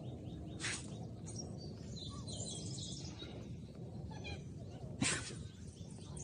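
Faint bird chirps, a few quick high notes and short glides, over a steady outdoor background hiss.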